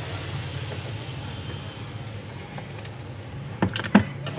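Low steady background hum, with a few sharp taps and clicks near the end as a phone battery is handled and laid down on a workbench.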